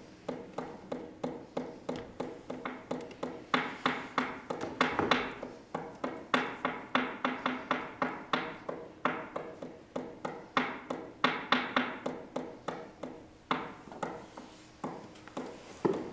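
Rapid taps and knocks on a hard surface, about three or four a second in uneven clusters, over a faint steady low hum.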